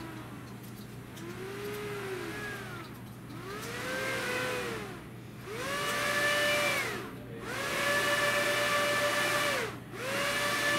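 The two electric propeller motors of a Quanser dual-rotor helicopter rig whining. Their pitch rises and falls in swells that grow higher and longer, then holds a steady high whine that drops away briefly twice near the end, as the controller varies the motor voltages.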